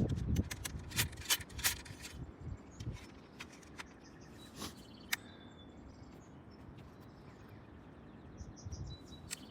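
Quiet outdoor ambience: a quick series of sharp clicks and taps in the first two seconds, then faint bird chirps, with a short run of repeated chirps near the end.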